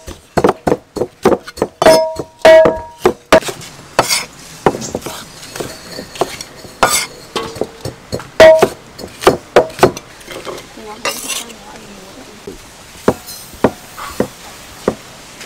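Cleaver chopping green mango on a wooden chopping block: a rapid run of sharp knocks, some with a short metallic ring, thinning out after about ten seconds.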